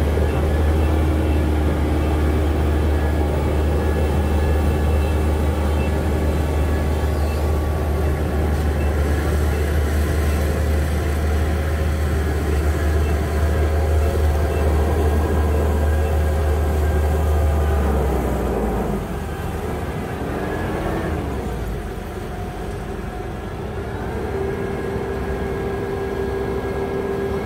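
Combine harvester's diesel engine running steadily with a deep drone. About eighteen seconds in the low drone drops away and the sound gets quieter, and near the end a steady higher whine sets in.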